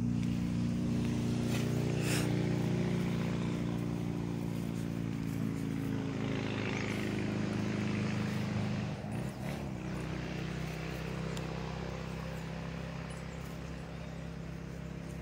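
An engine running steadily with a low hum. Its pitch wobbles briefly about nine seconds in, and it runs on a little quieter after that.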